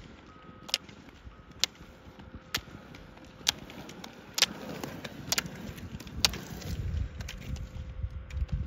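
Roller-ski pole tips striking the asphalt in sharp clicks, about one a second, as skiers skate uphill. In the second half a low rumble of roller-ski wheels on the pavement builds as a skier passes close.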